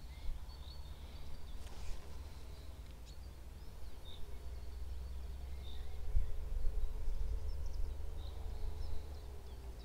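Ultralight spinning reel cranked steadily during a lure retrieve, a faint steady whir over low outdoor background noise, with a few faint, short bird chirps.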